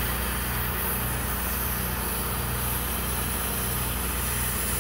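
Cutting torch hissing steadily as it burns through a steel silo wall, with an engine idling underneath in a slow, regular low pulse.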